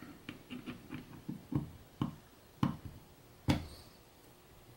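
Angular contact bearing being set into the bore of an aluminium bearing block and pressed down by hand: a string of small, sharp metal clicks and taps at uneven spacing, the two loudest near the middle.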